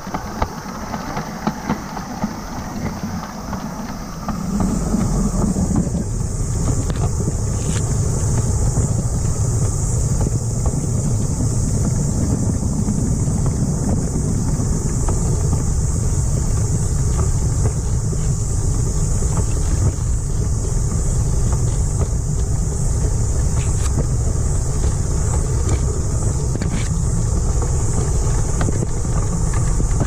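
Ride-on miniature garden railway train running along its track: a steady rumble of the wheels and locomotive, mixed with wind on the microphone, getting louder about four and a half seconds in.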